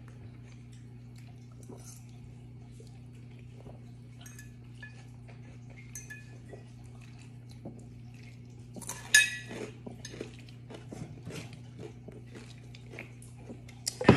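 A fork clinking and scraping against a bowl and dishes during a meal, in scattered small clicks over a steady low hum, with one louder clatter about nine seconds in.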